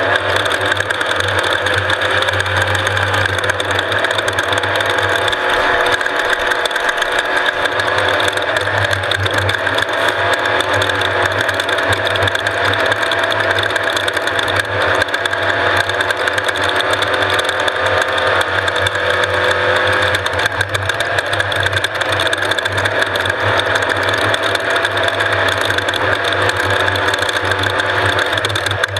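Off-road race vehicle's engine running continuously at speed, its pitch shifting slightly up and down as the throttle changes.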